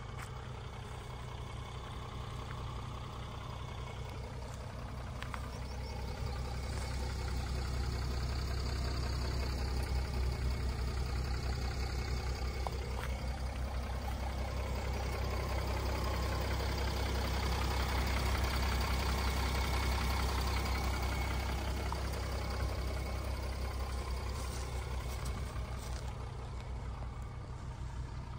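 Mercedes-Benz E350d BlueTec's 3.0-litre V6 diesel idling steadily, a low even hum that grows louder for a while and eases off again near the end.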